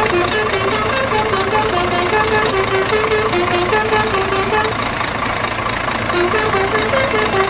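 Background music: a quick, bouncy melody of short notes stepping up and down over a fast, steady beat.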